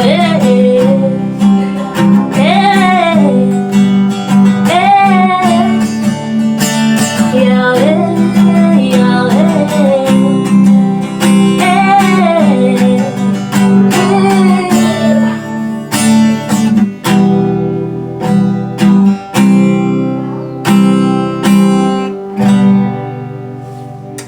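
Acoustic guitar strumming chords, with wordless sung melody gliding over it for the first fifteen seconds or so. After that the guitar plays on alone and fades out near the end.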